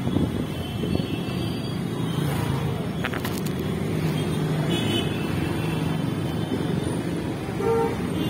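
Steady road traffic noise: vehicle engines running with a constant low rumble and hum, and a short click about three seconds in.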